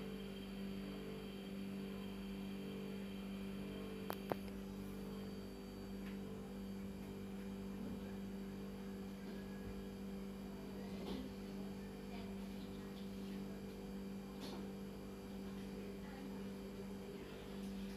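A steady low electrical-sounding hum with a few overtones. Over it come a few faint knocks of a stone pestle in a stone mortar, with a sharp pair about four seconds in.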